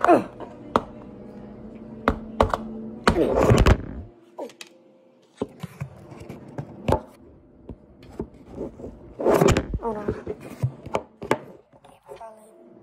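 Close handling noise from a hand gripping and moving the recording phone: a string of thumps, knocks and rubbing. It gets louder twice, about three seconds in and again about two thirds of the way through.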